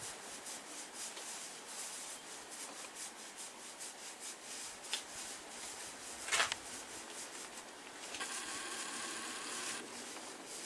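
Small paint roller rolling wet paint onto a boat's hull side, a soft rubbing swish repeated stroke after stroke. Two short sharp knocks come in the middle, the second the loudest, and the rubbing turns denser and rasping for a second or two near the end.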